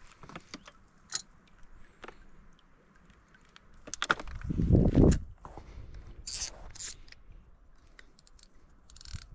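Handling noise of a carp rod and its tackle: scattered small clicks and light metallic clinks, with a heavier rustling knock about four seconds in as the rod is set down.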